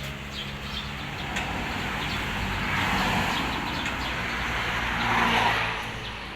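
A motor vehicle engine running steadily, with a rushing noise that swells twice, about three seconds in and again near five seconds.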